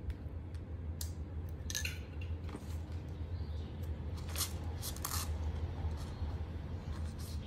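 Plastic stationery items (markers, glue sticks) clicking and tapping as they are handled and slipped into a pencil case, in scattered light clicks over a steady low hum.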